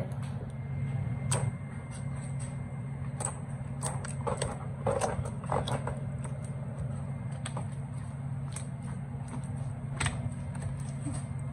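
Fluffy shaving-cream slime pressed and kneaded by hands, giving off irregular small clicks and pops of trapped air.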